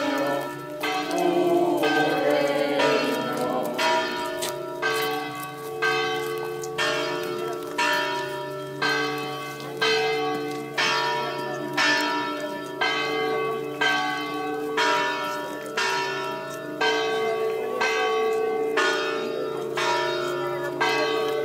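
Church bell tolling, struck about once a second, each stroke ringing out over a steady hum.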